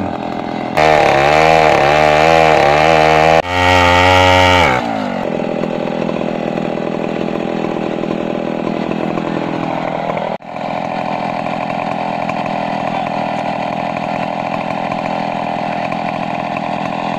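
Two-stroke chainsaw cutting up a felled mahogany tree. It runs at high revs with its pitch wavering for about four seconds, briefly dipping partway, then the revs fall and it runs on at a lower, steady pitch.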